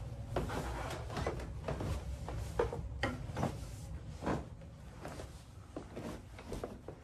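Footsteps going down a staircase: a run of irregular thuds on the treads, about one every half second to a second, thinning out near the end as the steps reach the floor.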